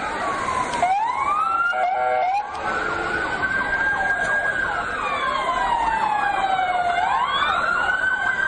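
Several emergency vehicle sirens, from the passing Turkish ambulances and police vehicles, wailing and overlapping, each slowly rising and falling in pitch. A short horn blast sounds about two seconds in.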